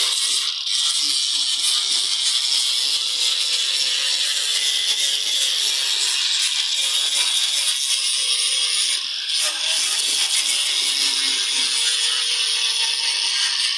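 Steady scraping of a tool working a piece of wood, an even hiss-like rasp.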